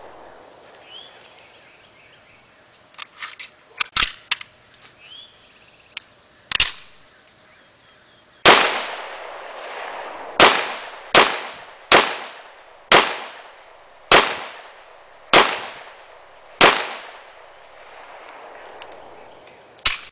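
CZ 52 pistol firing 7.62x25 rounds through a newly fitted barrel. There are a few fainter cracks, then a slow string of about nine loud shots roughly a second or so apart, each with a short echo tail, and one more right at the end.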